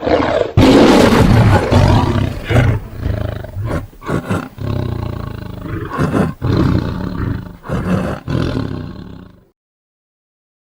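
Tiger roaring in a run of deep roars broken by short pauses, fading away and stopping about nine seconds in.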